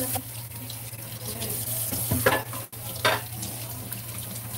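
Water running steadily from a sink tap while dishes are washed, with two brief sharper sounds a little past halfway.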